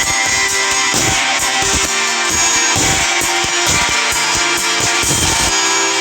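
A Nokia E5 ringtone playing: a music track with plucked guitar over a drum beat. About five and a half seconds in, the drums stop and held notes carry on.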